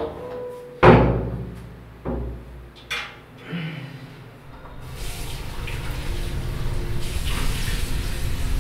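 A sudden loud bang about a second in, then two shorter knocks. From about five seconds in, water runs steadily from a bathroom sink tap.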